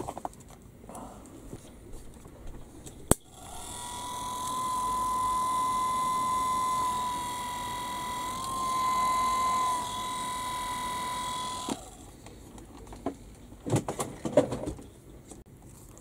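A small electric motor switched on with a click about three seconds in, building within a second to a steady high whine over a hiss, then cutting off suddenly about eight seconds later.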